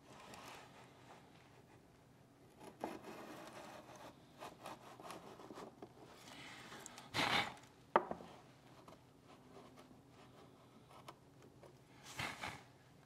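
Small hand router plane's cutter paring thin shavings from a wooden hinge mortise: quiet, intermittent scraping strokes, with louder strokes about seven and twelve seconds in and a sharp click about eight seconds in.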